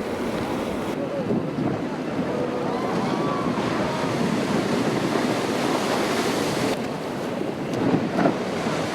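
Ocean surf: a steady rush of waves, with wind buffeting the microphone.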